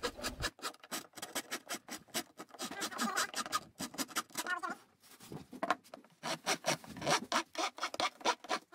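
Hand file rasping back and forth in quick repeated strokes, with a couple of brief pauses midway. It is dressing the edges of a rough, out-of-square jigsaw-cut rectangular hole in a laminated furniture-board cabinet door.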